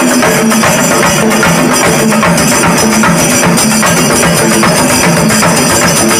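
A group of chenda drums, the Kerala cylindrical drums, beaten with sticks together in a fast, dense, unbroken rhythm.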